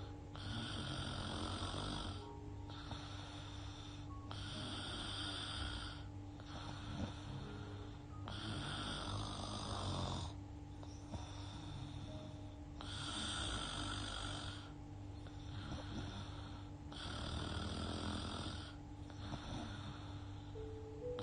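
A young woman snoring in her sleep, breathing through her open mouth: raspy breaths in and out come in regular swells about every two seconds. A steady low hum sits beneath them.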